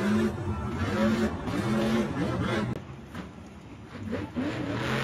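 Monster truck's supercharged V8 revving in short bursts as it drives, over the din of a stadium crowd. The engine eases off about three seconds in and picks up again near the end.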